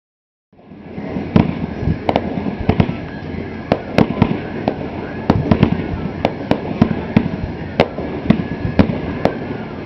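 Aerial fireworks bursting in quick succession: sharp bangs about two a second at irregular spacing over a continuous rumble of further bursts, starting about half a second in.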